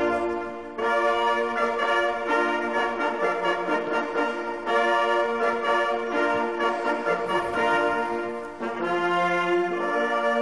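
Brass music playing a slow series of long held chords, each changing to the next after a second or two.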